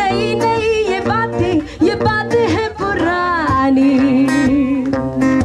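Background music: a Hindi song with a singer over guitar. The voice winds through a sung line and ends on a long held note with vibrato.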